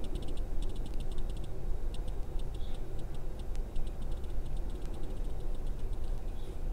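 Faint, irregular light clicks and ticks, many in quick little clusters, over a low steady hum.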